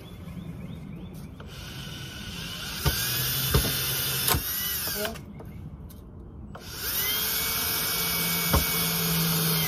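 Electric drill running in two long bursts, its motor whine rising in pitch as it spins up each time, with a few sharp knocks in between.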